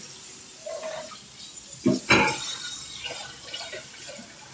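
Kitchen tap running into a sink while a pan is rinsed, with two sharp knocks close together about two seconds in as the pan hits the sink.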